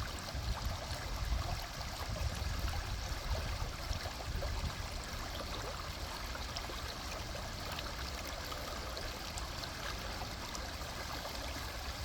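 River water flowing: a steady rush of water, with a low, unsteady rumble underneath.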